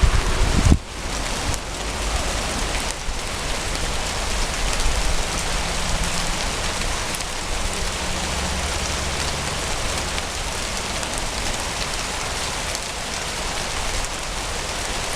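Heavy rain falling steadily during a thunderstorm. A loud low rumble at the very start cuts off abruptly under a second in, and a softer low rumble comes about halfway through.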